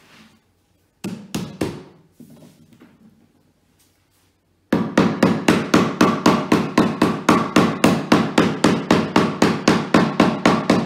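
A hammer tapping fast and evenly, about five strikes a second, knocking a chipboard drawer panel down onto its glued wooden dowels. The tapping starts about five seconds in, after a few scattered knocks.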